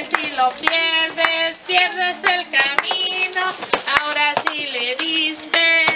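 Voices singing a song together, with hand claps keeping a fairly regular beat.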